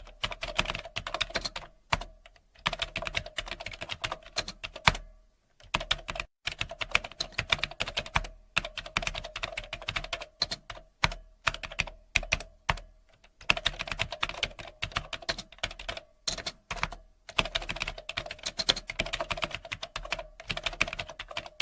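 Typing on a computer keyboard: rapid key clicks in bursts of a few seconds, broken by short pauses.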